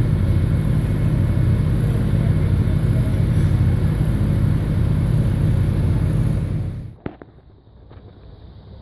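Construction machinery engine running steadily with a deep, even drone. It cuts off abruptly about seven seconds in, leaving a quiet outdoor background with one short click.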